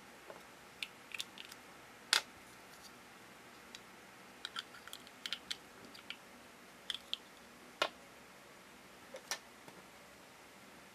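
Small hard plastic toy parts clicking and knocking together as they are handled and fitted, in scattered sharp clicks, the loudest about two seconds in and again near eight seconds.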